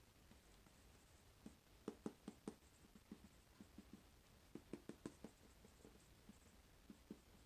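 Dry-erase marker writing on a small whiteboard: faint taps and short strokes, in a cluster about two seconds in and another about five seconds in.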